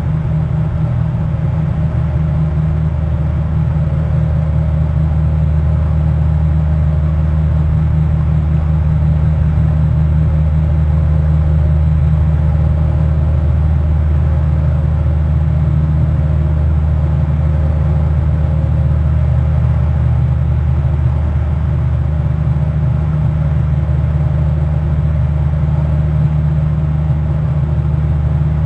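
A steady low rumble that does not change.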